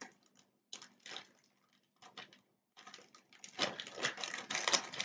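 Rustling and crinkling of packaging as items are handled during an unboxing, in short irregular bursts that grow denser and louder over the last second and a half.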